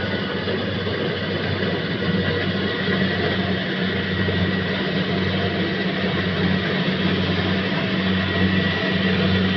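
Combine harvester running steadily: a deep engine hum under a wash of machinery noise, with a thin high whine held throughout.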